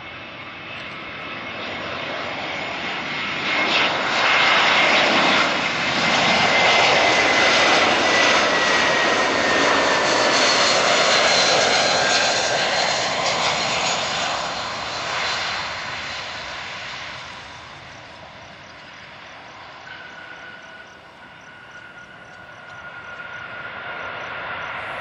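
Airbus A320 jet airliner passing low on final approach: its engine noise swells to loud for about ten seconds, with a thin whine sliding down in pitch, then fades away. A quieter swell of engine noise comes back near the end.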